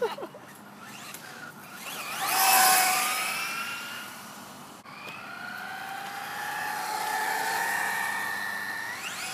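Traxxas Slash RC truck's electric motor whining as it is driven hard. It comes through loudest about two seconds in, with the pitch dropping as it passes. It then winds up again into a long, rising whine that climbs sharply near the end.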